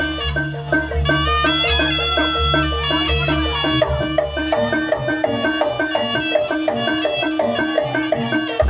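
Jaranan ensemble music: a shrill reedy wind instrument plays a winding melody over a steady repeating pattern of gong-chimes and drums, with a low sustained hum beneath.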